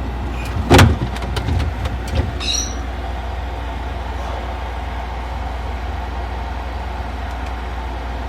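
A panel in a refrigerator's freezer compartment lowered back into place: one loud clunk about a second in, a few lighter knocks and a short squeak. Under it and after it is the steady low hum of the refrigerator running.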